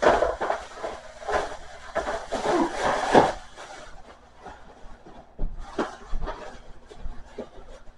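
Kitchenware clattering and knocking as food storage containers are handled and moved about: a dense run of knocks and rattles for about three seconds, then a few scattered knocks.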